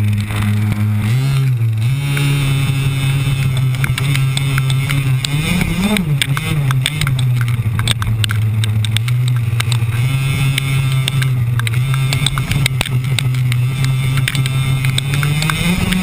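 Radio-controlled buggy's motor running at a steady pitch as the car drives over grass. The pitch rises briefly about a second in and again around six seconds, and climbs near the end. Frequent short knocks and rattles come from the chassis bouncing over the ground.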